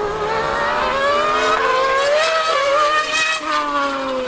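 A 2013 Formula 1 car's V8 and a Yamaha R1M superbike's engine racing together at speed, their high engine notes climbing as they accelerate, with a sudden dip in pitch about three and a half seconds in.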